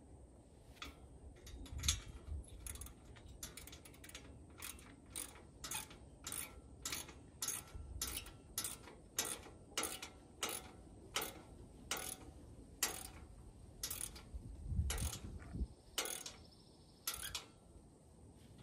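Ratcheting clicks, about two a second, as a bolt holding a steel grill guard is tightened; the clicking stops about a second before the end. A low thump or two comes near the end.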